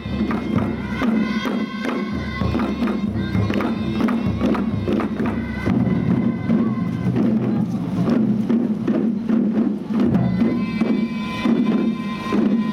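Schoolchildren's troupe beating chijin hand drums and a large taiko in time with Amami folk music, over a held melody.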